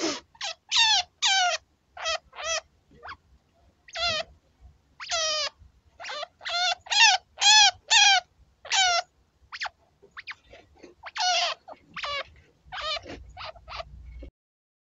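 Chinchilla kit squeaking to beg its mother for food: a string of short, high-pitched calls, each falling in pitch, coming in uneven runs with short pauses between them.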